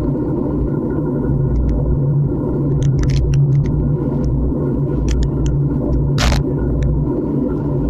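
Wind and road rumble on a bike-mounted camera while riding a road bike at about 30 km/h, a steady low rumble with scattered clicks and rattles from the bike. A brief hiss comes about six seconds in.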